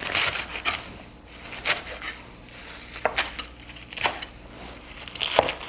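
Large kitchen knife chopping fresh cilantro leaves and stems on a wooden cutting board: a crunchy run of cuts at the start, then about five separate knife strikes on the board, roughly a second apart.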